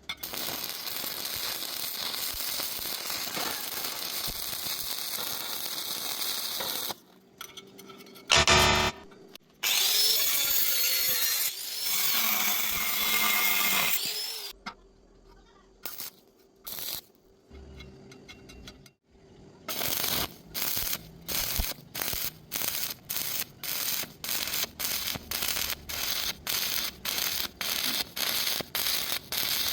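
Power tool sounds from metalwork. A tool runs steadily for about seven seconds, and after a loud short burst a second noisy run follows. Near the end comes a regular series of short strokes, about two a second.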